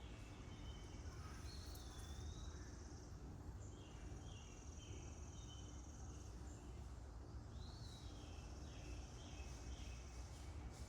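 Quiet outdoor ambience: a steady high insect trill that comes and goes, a few bird chirps and slurred calls, and a low background rumble.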